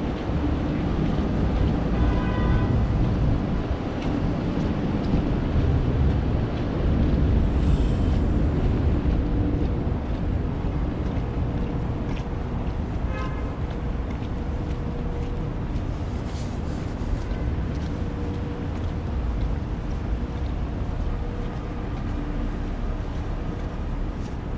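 Wind buffeting the microphone in a loud, uneven low rumble. A brief high-pitched squeak cuts through twice, a couple of seconds in and again about halfway.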